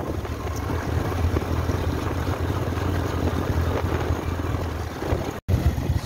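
Wind buffeting the microphone over a steady low rumble, with a momentary dropout in the sound near the end.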